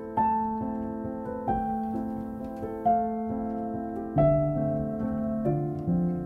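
Calm background music: slow keyboard notes struck about every second and a half over sustained chords.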